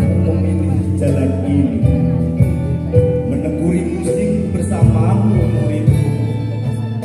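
Live band music played through a PA system: guitars over a steady bass line, with some singing.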